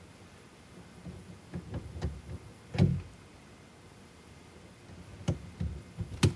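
Short plastic clicks and knocks as a fuse is pushed into an Add-A-Circuit fuse tap and the tap is pressed into the truck's under-dash fuse box. They come in two clusters, the sharpest knock about three seconds in and another near the end.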